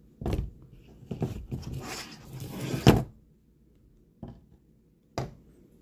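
Velcro retaining strap being pulled open and the knife drawn out of its plastic sheath: rough rustling and scraping over the first three seconds with a sharp peak just before the knife comes free. Then two short knocks about a second apart, as the gear is handled on the table.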